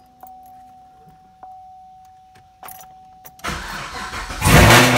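Chevrolet Camaro SS's 6.2-litre V8 with long-tube headers being started, heard from inside the cabin. A faint steady whine with a light tick about every second, then the starter cranks about three and a half seconds in and the engine catches with a loud flare-up near the end.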